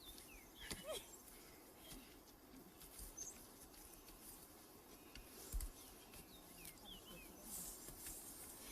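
Very quiet ambience with a few faint, short bird chirps and scattered soft clicks, plus one soft low thump about two-thirds of the way through.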